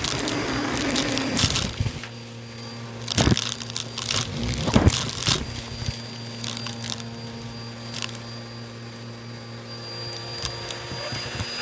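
Bissell vacuum running with a steady hum and a faint high whine while debris crunches and crackles through it, with sharp cracks about three and five seconds in.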